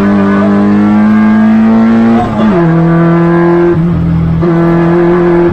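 Peugeot 106 race car's carburetted 1.4-litre four-cylinder engine pulling hard up a hill climb, its pitch creeping up, then dropping with a short dip about two seconds in as it shifts up a gear, and holding steady after a brief break near four seconds in.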